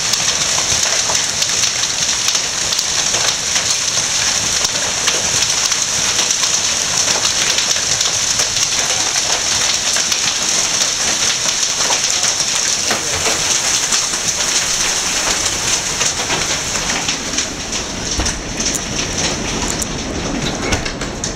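Hailstorm: hail and heavy rain pelting down, a dense steady hiss studded with many sharp ticks of hailstones striking. A low rumble grows stronger in the last few seconds.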